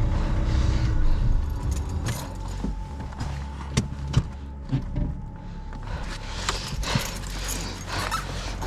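Hands working on a car headlight assembly: scattered sharp clicks and light rattles of plastic and metal parts being handled, over a steady low rumble.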